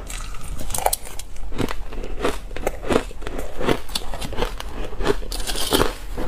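Crushed ice being chewed close to a lapel microphone: a run of crisp, irregular crunches, about two a second.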